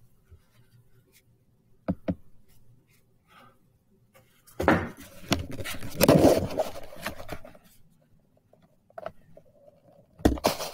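Handling noise from the recording device being picked up and moved: a couple of knocks about two seconds in, a long stretch of rubbing and scraping over the microphone in the middle, then more knocks near the end as it is set down.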